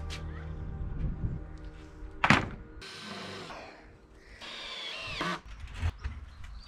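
Background music over the first half. About two seconds in there is a single sharp wooden thunk, the loudest sound. Near the middle a cordless drill/driver runs briefly, its whine dropping in pitch as it stops.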